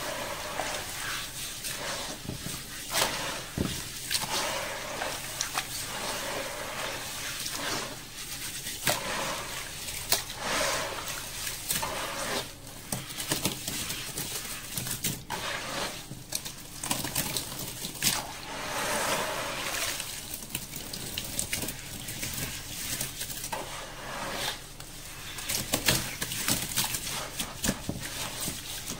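Hands squeezing and crumbling wet, grainy sand-cement in a tub of water: gritty squishing and crackling with water sloshing and dribbling, in an irregular run of small sharp crackles.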